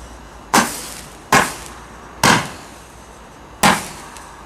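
Fireworks going off: four sharp bangs at uneven intervals, each fading with a short echoing tail.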